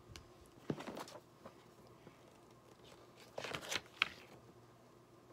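Paper rustling as coupon flyers and a glossy booklet are handled and leafed through: a few short rustles about a second in, then a louder cluster of rustles and clicks a little past three seconds.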